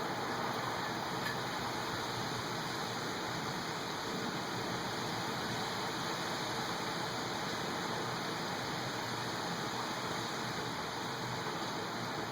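Steady rain from a severe thunderstorm, an even hiss with no thunder.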